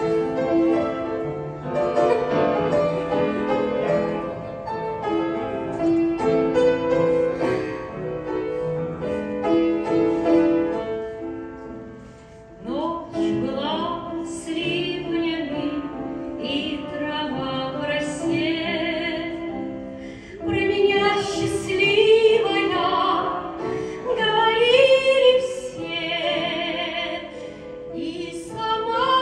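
A grand piano plays an introduction alone; a little before halfway a woman's voice comes in, singing in a classical, operatic style with vibrato over the piano accompaniment.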